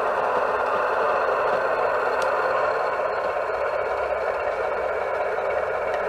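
Model Class 25 diesel locomotive's DCC sound decoder playing the engine of a Class 25 running steadily under way, heard through the model's small speaker, with little bass.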